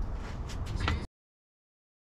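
Low outdoor rumble with a few light clicks, cutting off abruptly to dead silence about a second in.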